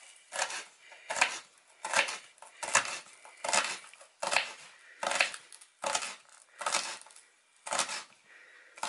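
Small paring knife chopping an onion on a wooden board: a steady series of sharp knife knocks, about one every three-quarters of a second.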